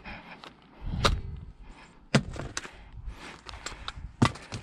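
Airsoft rifle being handled during a reload: a few sharp separate clicks and knocks, the loudest about four seconds in as a magazine is brought to the magazine well.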